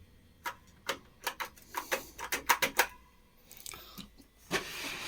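A quick run of sharp clicks and light knocks, about a dozen in two seconds, then a short rustle near the end: cables and plugs being handled at the back of a computer.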